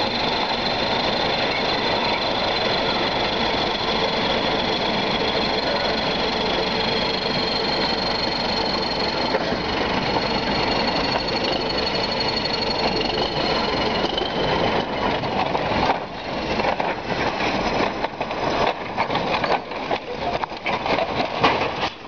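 Diesel engine of a crawler bulldozer running steadily under load, with a thin high whine over it. About two-thirds of the way through, the sound turns uneven, broken by many short knocks and crackles.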